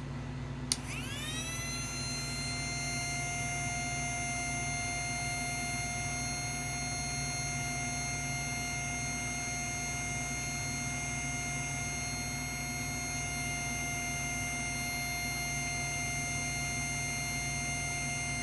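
Mini 4WD electric motor switched on with a click, its whine rising over about a second and then holding steady at high speed. The steady whine reads about 42,000 RPM on a sound-based RPM checker, with the motor run on 4.5 volts.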